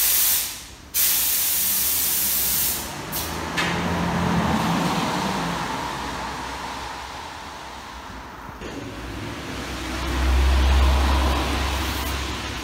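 Workshop compressed air hissing in loud bursts that start and stop sharply, over a continuous lower hiss, with a low rumble about ten seconds in.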